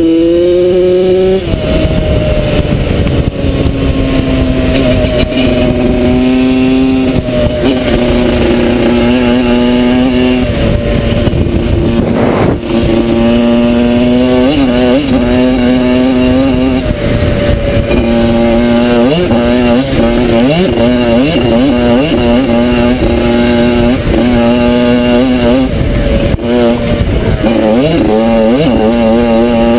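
Yamaha YZ85 two-stroke single-cylinder dirt bike engine under way at speed, its pitch climbing again and again as it revs up through the gears, holding steady between climbs. A rough rumble of wind and trail noise runs underneath.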